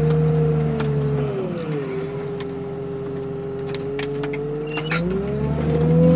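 Diesel engine of a hydraulic car crusher running steadily, its pitch dipping about a second and a half in and climbing again about five seconds in. A few faint clicks sound near the end.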